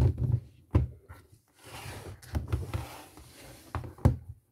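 Hardcover picture books being handled and shifted on a table: several knocks as they are set down, the sharpest near the end, with a sliding rustle across the surface through the middle.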